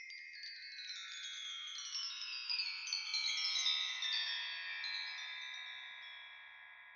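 Chimes ringing in a shimmering cascade that falls in pitch over about four seconds, then the notes hold and slowly fade.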